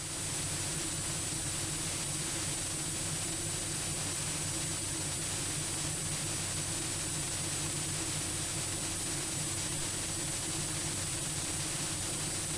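Steady cockpit drone of a Cessna Grand Caravan's PT6A turboprop engine and propeller with airflow hiss, holding an even level on final approach, with a thin steady high whine over it.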